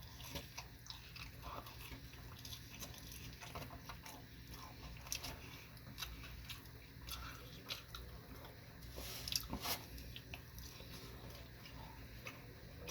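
A person chewing sushi: faint, irregular mouth clicks and smacks.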